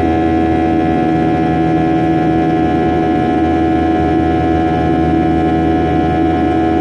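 Steady drone of a Boeing 737's CFM56 turbofan engines heard inside the passenger cabin in the climb after take-off: a constant hum with several steady tones over a rush of air.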